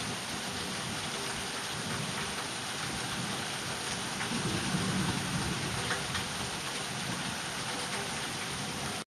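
Steady rain falling in a thunderstorm, with a low rumble of thunder swelling and fading about four to six seconds in.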